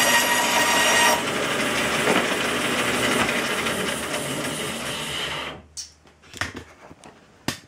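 Bandsaw cutting through a small wood block, then running on without load. The sound slowly fades and stops about five and a half seconds in, followed by a few light knocks.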